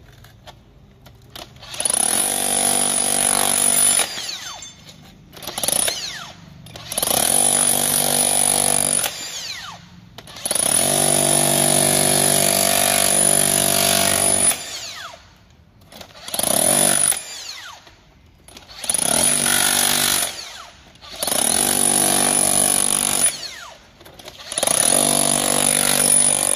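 Makita cordless rotary hammer with a pointed chisel bit hammering into concrete blocks, in about eight bursts of one to four seconds each with short pauses between them.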